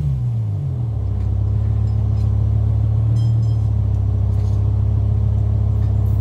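BMW M6's S85 V10 engine heard at its quad exhaust, revs falling away after a rev and settling to a steady idle about a second in.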